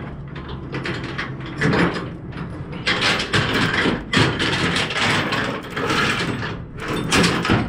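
Clanking and ratcheting of a flatbed truck's cargo strap hardware as a strap is hooked and drawn in on its side-rail winch, with a run of irregular mechanical strokes and scrapes.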